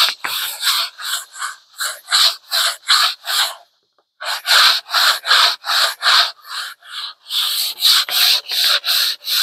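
Sponge sanding block rubbed back and forth by hand on a wooden window box, about three rasping strokes a second with a brief pause about four seconds in.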